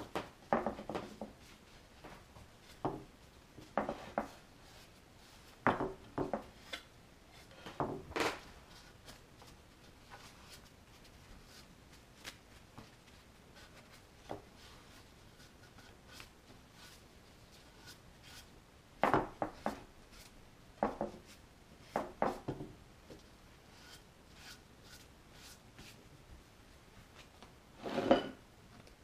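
Turned hardwood chair legs and stretchers being handled on a wooden workbench: scattered short wooden knocks and clatters, some in quick clusters, with rag rubbing in between.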